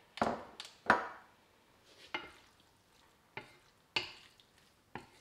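Wooden spoon stirring wet spaghetti in a stainless steel frying pan, knocking and scraping against the pan about seven times at irregular intervals; the loudest knocks come in the first second.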